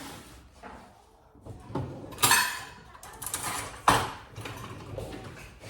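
A knife cutting through the crust of a home-baked sourdough loaf: a few short, scratchy strokes, with a sharp knock about four seconds in.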